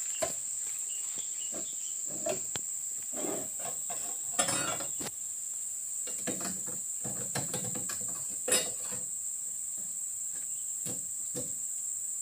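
Steady high-pitched drone of insects in the palm plantation, with scattered knocks and thumps, the loudest about eight and a half seconds in.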